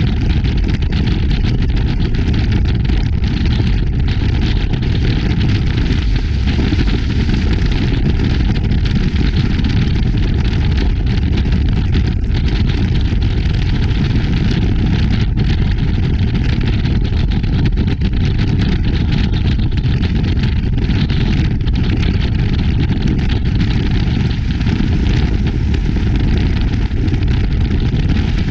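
Powerboat running at speed, heard from a bow-mounted GoPro: a loud, steady rush of wind over the camera with the boat's engine drone underneath, full of small rapid buffets.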